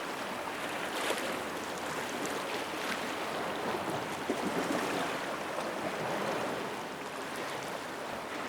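Sea water washing and splashing, a steady rushing noise with a few small splashes and ticks.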